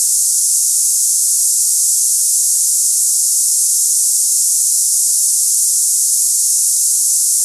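Tinnitus sample of the cicada-like hissing type: a loud, steady, high-pitched hiss with no low or middle sound, unchanging throughout.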